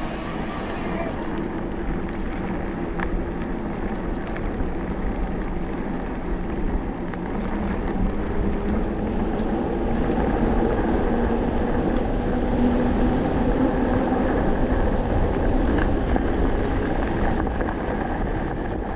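Electric mountain bike ridden along a gravel forest track: steady rolling noise of tyres on gravel with wind on the action camera's microphone, growing somewhat louder about halfway through.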